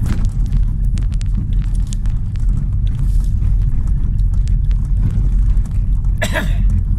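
Car driving on a gravel road, heard from inside the cabin: a steady low rumble of tyres and engine, with scattered clicks in the first half and a short loud noise about six seconds in.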